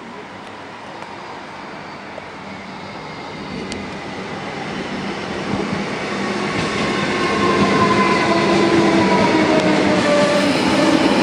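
Electric suburban metro train approaching and pulling in alongside the platform, growing steadily louder. Its whine slides slowly down in pitch as it slows.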